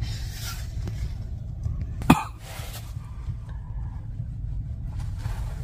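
Steady low road and engine rumble inside a moving car's cabin, with a single sharp knock about two seconds in.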